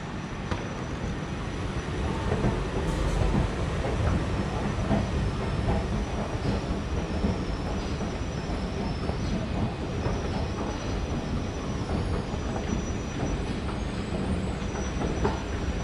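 Train running on the rails: a steady rumble with rail and wheel noise that grows louder about two seconds in, and a faint high whine in the later seconds.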